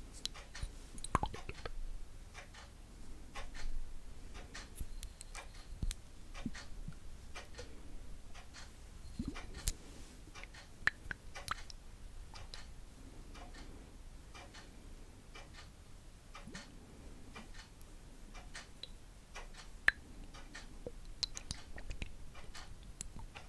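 Close-miked ASMR trigger sounds: irregular small clicks, taps and crackles, scattered through with a few sharper ones.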